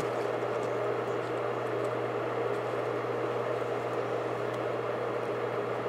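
Automotive AC blower motor and fan running steadily under PWM speed control: a steady rush of air with a low hum.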